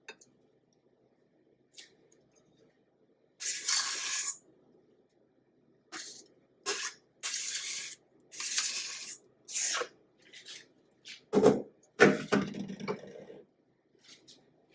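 Metal spatula scraping buttercream frosting out of a stainless steel bowl and spreading it over a cake, in a series of short scraping strokes. Near the end come two louder, duller knocks and bumps.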